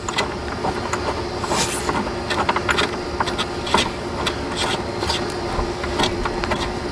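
Irregular sharp metallic clicks and clinks from hand tools and mounting hardware being worked on an outboard motor mount, over a steady low hum.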